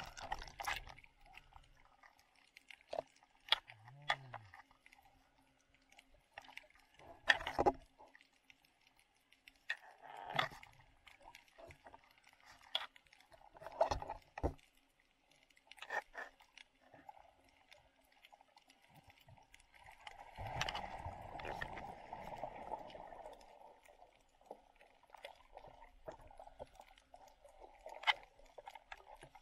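Muffled underwater sound heard through a submerged camera: scattered soft knocks and clicks every second or two over a faint steady hum, with a few seconds of rushing water noise about two-thirds of the way through.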